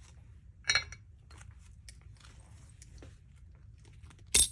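Faint ticks and taps of small tools being handled on a workbench, with two sharper metallic clicks, one about a second in and a louder one near the end.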